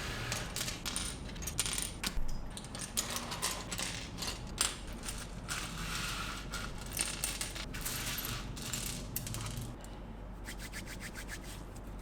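Small plastic building-brick pieces clicking and rattling against each other as they are handled and sorted. Near the end this turns into a run of lighter, quick clicks.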